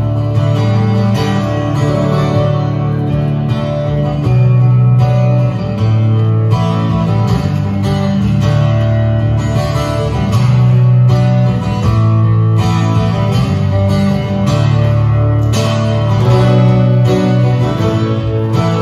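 Two acoustic guitars playing an instrumental passage together, picked and strummed chords ringing on through steady chord changes, amplified over a PA.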